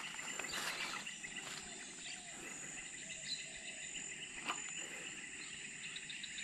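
A steady, high-pitched chorus of insects droning at two pitches, with a few faint clicks about half a second, one and a half seconds and four and a half seconds in.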